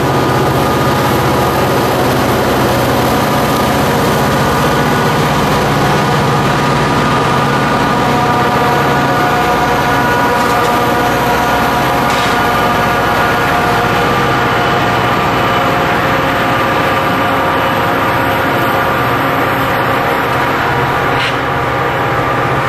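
Norfolk Southern EMD SD40-2 diesel locomotives, 16-cylinder two-stroke engines, running at full throttle in notch 8 while pulling a freight train. A loud, steady engine drone with a set of steady tones over it.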